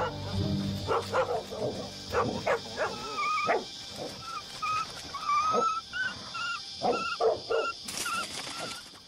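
A dog barking repeatedly in short bunches, with a string of short, high, wavering cries through the middle and later part.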